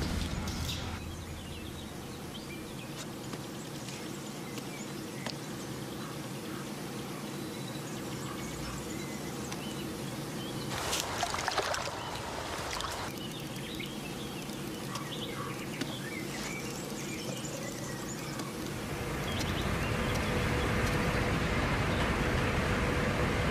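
Low outdoor ambience with a brief louder noise about halfway through. Near the end a river barge's engine comes up as it passes, a steady drone that grows louder.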